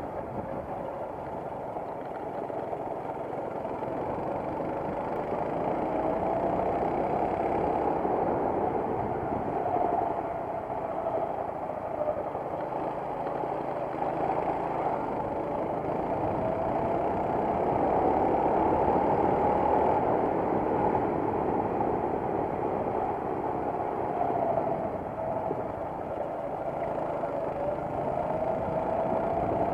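Racing kart engine heard on board, running continuously with its pitch rising and falling every few seconds as the driver accelerates and lifts off.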